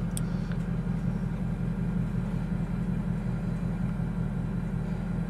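Steady low rumble of a car driving: engine and road noise, with a faint click near the start.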